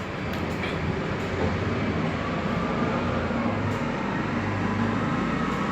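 A steady low rumbling noise that slowly grows louder, with a few faint clicks in the first second or so.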